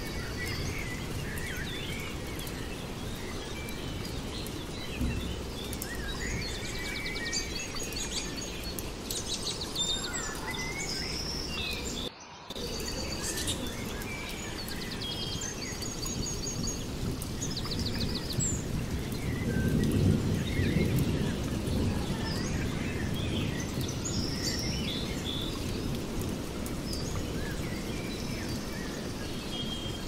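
Songbirds chirping and trilling over a steady low rushing background. The sound cuts out for a moment about twelve seconds in, and a low rumble swells up around twenty seconds in.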